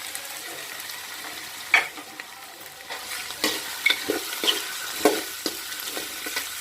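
Vegetables sizzling in oil in a frying pan while being stirred. A spatula scrapes and knocks against the pan several times, sharply.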